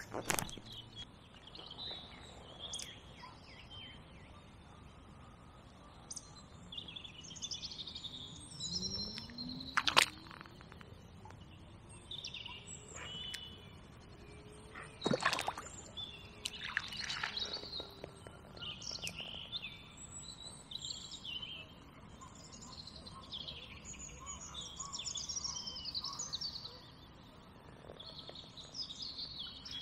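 Several songbirds singing and calling in short chirps and warbling phrases. A few sharp clicks cut through, the loudest about ten seconds in and another about fifteen seconds in.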